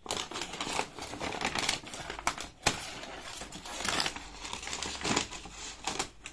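Scissors snipping through thick brown kraft-paper parcel wrapping, the paper crinkling and crackling as it is cut, in an irregular run of sharp snips.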